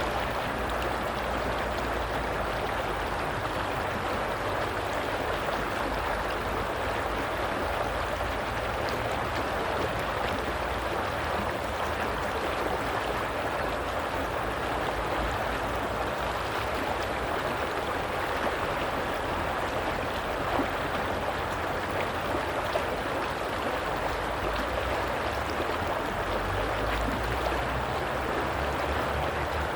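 Flowing water, a steady rush with a low rumble underneath.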